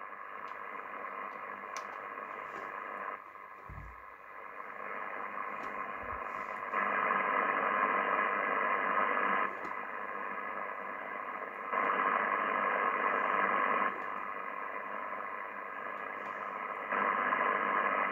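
Icom IC-R8600 receiver's audio on an 11-metre SSB channel, giving a steady crackling hiss of unexplained interference noise. The receiver's noise reduction is switched on and off several times, so the noise drops to a softer hiss and then jumps back louder three times.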